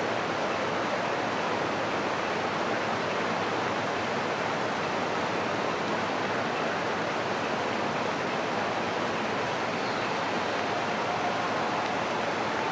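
Heavy rain pouring down steadily on a stadium running track: an even, unbroken hiss.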